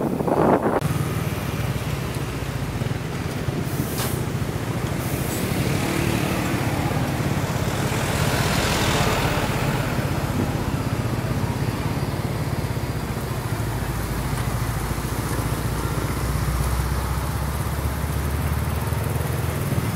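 Steady drone of road vehicles on the move: engine hum with tyre and road noise, a short click about four seconds in and a brief swell of noise around the middle.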